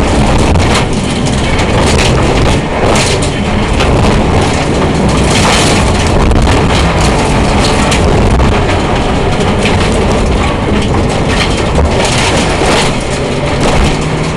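Rally car driven hard on a gravel stage, heard from inside the cabin: a loud, constant rumble of engine and road noise, with sharp knocks from stones and bumps striking the underbody several times.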